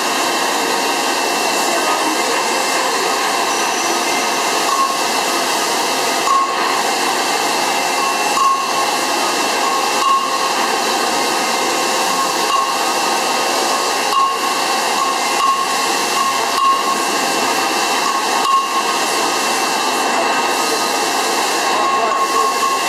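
BEMATO BMT 1300NCT NC radial drill running and drilling into a steel ring: a steady hissing machine noise with a constant high whine, and short tones that come back every couple of seconds.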